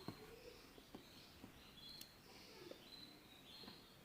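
Near silence: room tone with a few faint, short, high chirps and light clicks.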